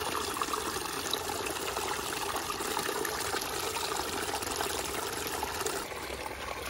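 Steady trickle of running water, dropping a little in level about six seconds in.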